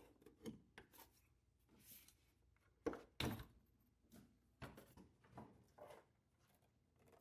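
Near silence with a few faint clicks and knocks as a plastic engine cover is lifted off its push-on clips, the loudest a little under three seconds in.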